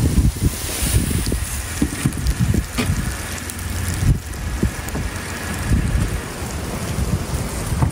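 Wind buffeting the microphone in gusts, the loudest sound throughout, with a small SUV driving in slowly and coming to a stop underneath it.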